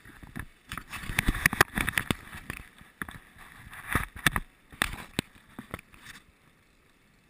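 Handling noise: irregular clicks, knocks and rustling close to the microphone as gear is handled. It stops about six seconds in.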